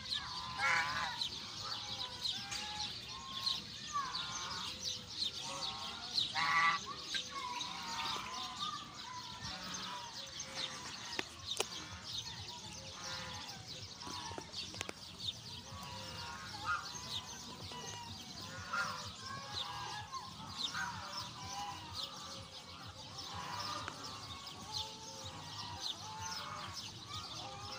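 Mixed bird calls from a flock of waterfowl and small birds: geese honking again and again, over continual high chirping.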